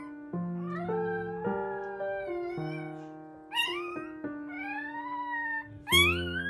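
Young Rottweiler puppies squealing and whining, several rising-and-falling cries with the loudest near the end, over soft background piano music.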